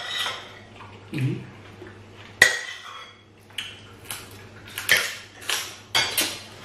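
Metal spoon clinking and scraping against a ceramic plate, with close-miked eating sounds, in a string of short, sharp knocks; the sharpest comes about two and a half seconds in, and quicker ones crowd together in the second half.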